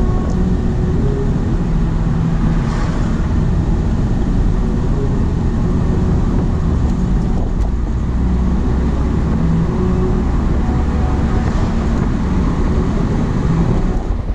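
Road noise heard from inside a moving car's cabin: a steady, loud low rumble of tyres and engine at cruising speed.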